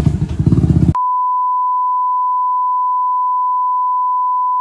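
An engine runs with an even beat for about a second, then is cut off abruptly by a loud, steady single-pitch censor bleep that blanks out all other sound.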